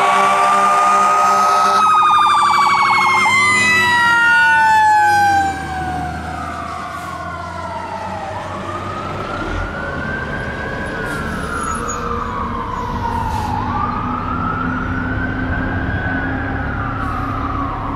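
Fire engine responding with its warning devices going: a steady horn blast for about the first two seconds, then a quick warble. After that a long siren tone falls steadily, while a wail siren rises and falls about every four to five seconds. The sound drops in loudness about five seconds in as the truck moves away.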